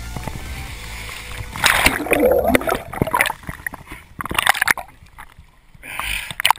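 Water splashing and sloshing in irregular surges and bursts.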